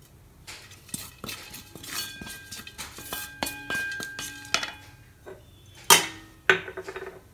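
Wooden spatula scraping and knocking against a heavy uruli pan while stirring grated coconut and whole spices as they dry-roast, with one louder knock near the end as the spatula is set down on the pan.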